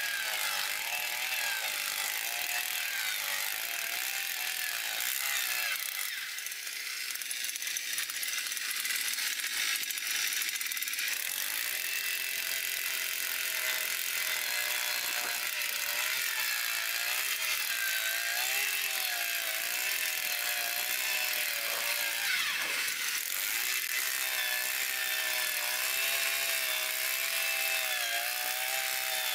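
Hand-held 2.5 hp earth auger's single-cylinder two-stroke petrol engine (49.9 cc) running at high throttle while its 15 cm auger bit bores into dry, hard-crusted field soil. The engine note wavers up and down.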